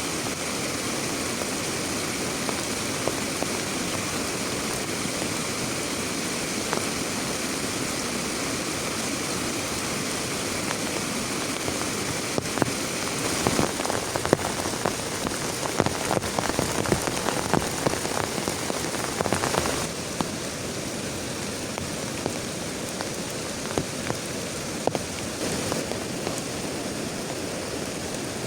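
Heavy rain falling steadily. A little under halfway through, loud close drops strike a surface thickly for several seconds, then about two-thirds of the way through the sound settles back to a softer, steadier hiss.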